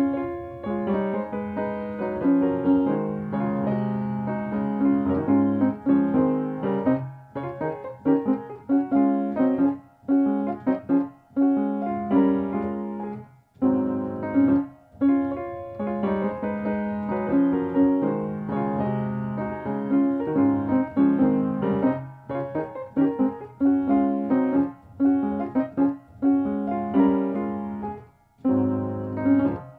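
Background piano music: a piece of chords and melody notes, with a few short pauses between phrases.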